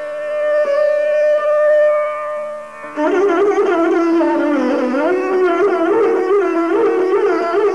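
Esraj, a bowed Indian string instrument, playing a slow passage in Raag Mishra Bhoop. It holds a long note, then about three seconds in a louder phrase begins, with sliding, ornamented notes.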